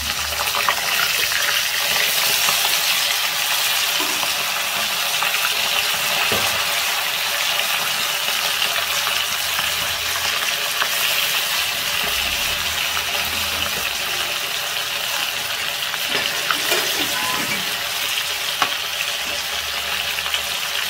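Hot oil sizzling and crackling steadily as small whole fish deep-fry in a metal karahi, with a few faint clicks. The fish are being fried on until crisp and deep red.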